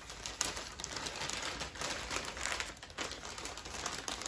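Brown paper bag crinkling and rustling in irregular crackles as a hand is worked inside it to put on a paper-bag owl puppet.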